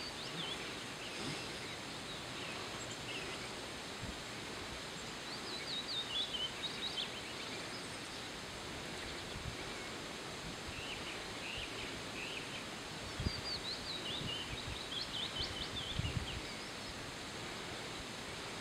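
Outdoor ambience: a steady background hiss with small birds chirping now and then, most around six seconds in and again around fourteen to sixteen seconds in. A couple of soft low thumps come in the later part.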